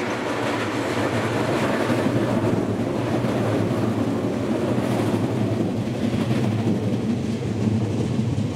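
JR West 115 series three-car electric multiple unit passing close by, with a steady, loud sound of wheels running on rails and the cars' running gear going past.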